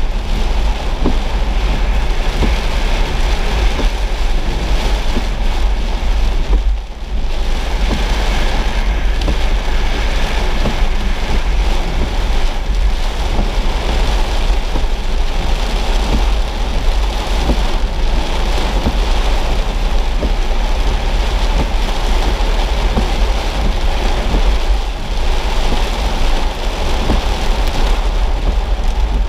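Heavy rain beating on a car's windshield and body, heard from inside the cabin over the steady low rumble of the car driving on a wet road. The noise dips briefly about seven seconds in.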